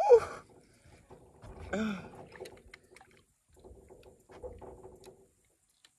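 A man's short wordless vocal exclamations, a rising-and-falling 'ooh' right at the start and a shorter falling one about two seconds in. Between them and after them come quieter clicks and rattles of a spinning reel being cranked and handled as a bluegill is reeled in.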